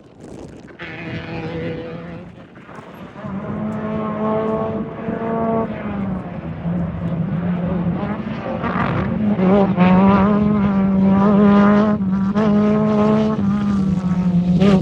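Off-road race vehicle's engine revving hard, its pitch climbing and dropping several times with throttle and gear changes, growing steadily louder as it approaches at speed.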